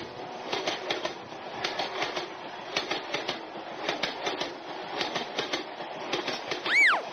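Train running along rails: a steady rumble with the clickety-clack of wheels over rail joints. Near the end, a short tone rises and then falls in pitch.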